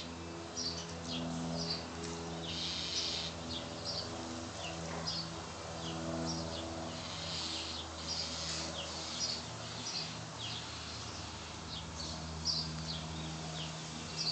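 Small birds chirping over and over, with a low droning hum that starts and stops in stretches of a second or two underneath.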